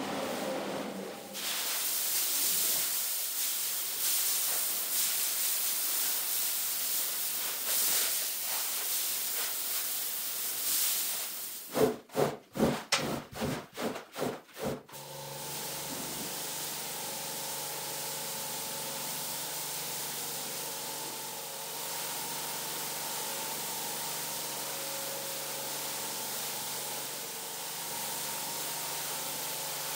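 A rough, hissing scrub over a wet rug, then about eight loud rhythmic strokes of a squeegee pushing water off the rug. After that comes the steady hiss of a pressure-washer jet rinsing the rug, with a faint steady hum from the pump.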